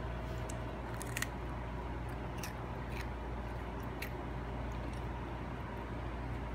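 Toddler crunching a SkyFlakes cracker: short, sharp crunching clicks every second or so, the loudest about a second in, over a steady low hum.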